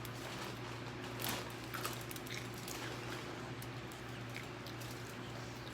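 Eating sounds: a few soft crunches and clicks of someone chewing fried food, over a steady low hum.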